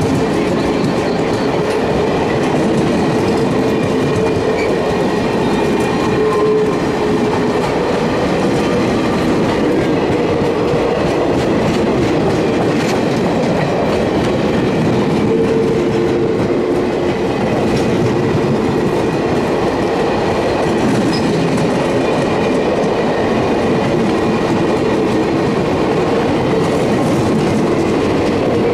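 Passenger coaches of a diesel-hauled excursion train rolling past: a steady rumble of steel wheels on the rails, with faint steady whining tones over it.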